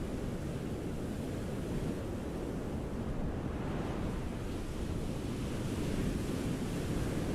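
Ocean waves washing onto a beach: a continuous rushing surf, swelling as a wave builds and breaks in the second half.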